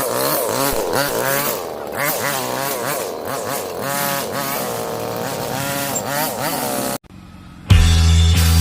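Small lawn mower engine running and being revved up and down over and over. It cuts off abruptly about seven seconds in, and loud music starts near the end.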